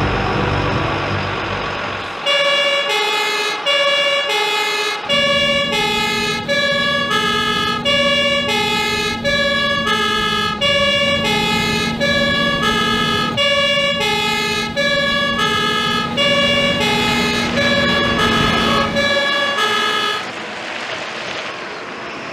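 Fire engine's two-tone horn sounding, switching between a high and a low note about every half second, with the truck's engine running beneath it. The horn starts about two seconds in and stops near the end.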